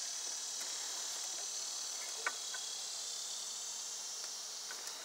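Steady high-pitched chorus of insects in the yard, even and unbroken, with one small click a little over two seconds in.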